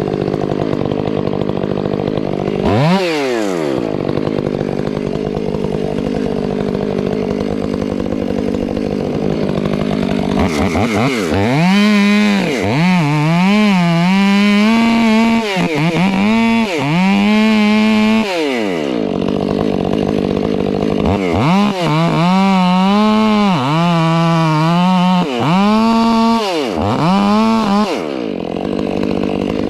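Gas chainsaw idling with one quick throttle blip. From about ten seconds in it runs at full throttle cutting wood, its pitch repeatedly sagging and recovering under load. The engine eases off briefly twice before revving up again near the end.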